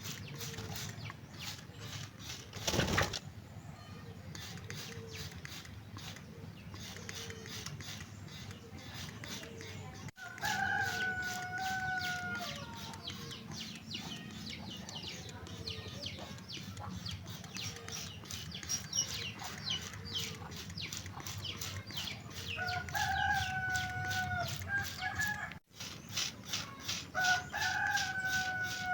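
A rooster crowing three times, each crow rising, holding and falling over about a second and a half, over a fast, even ticking, with a short loud burst about three seconds in.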